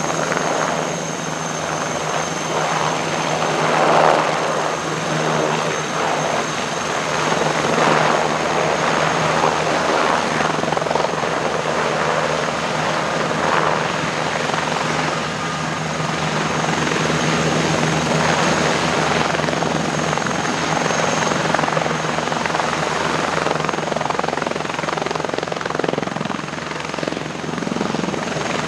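Military turbine helicopter running, its rotor noise swelling and easing every few seconds under a steady high turbine whine.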